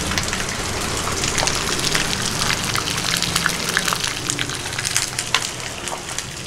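Tofu frying in hot oil: a steady sizzle with frequent sharp pops and crackles.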